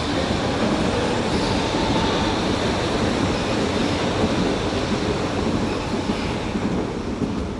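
A Berlin U-Bahn train running past the platform: a loud steady rumble of wheels on the rails, with a faint high whine above it. The sound eases off near the end as the last cars go by.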